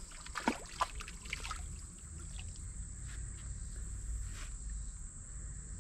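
Quiet riverside ambience: a steady low rumble and a thin steady high hum, with a few short light clicks in the first second and a half.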